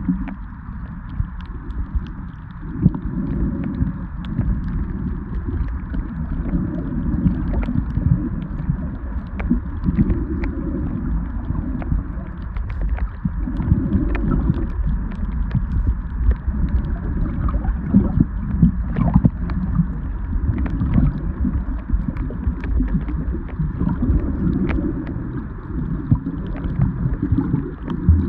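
Muffled underwater water noise picked up by a camera held below the surface: a low, steady rush that swells every few seconds, with many faint scattered clicks and crackles.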